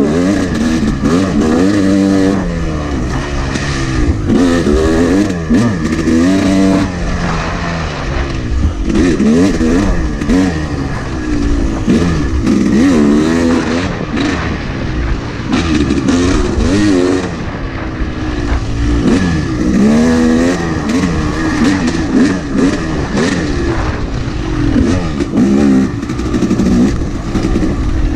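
Yamaha YZ250 two-stroke dirt bike engine revving up and dropping back again and again, a rise and fall every second or two as the rider works the throttle through the gears on a rough trail, heard from a camera mounted on the bike itself. Short knocks and rattles from the bike run through it.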